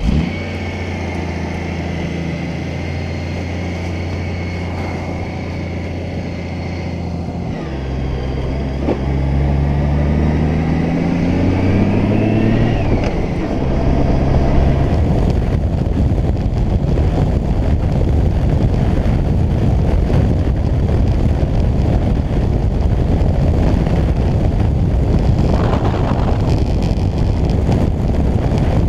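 Honda Gold Wing flat-six engine idling steadily, then pulling away, its note rising in steps through the gear changes. From about halfway on, a steady rush of wind and road noise at cruising speed covers the engine.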